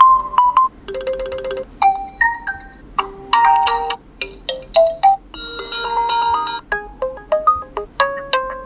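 Realme C31 built-in ringtones playing: short electronic melodies of bright, plucked and chiming notes in quick phrases, with a stretch of held chords partway through.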